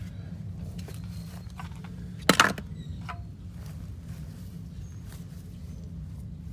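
A single sharp clatter, like a hard object knocked or set down, about two seconds in, over a steady low hum.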